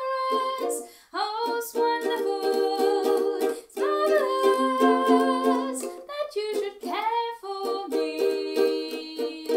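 A woman singing to her own strummed ukulele, closing on a long held chord near the end.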